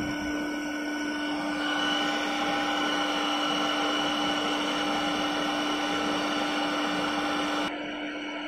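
WDS-700 BGA rework machine running with a steady whir. A higher whine joins about a second and a half in and cuts off suddenly near the end.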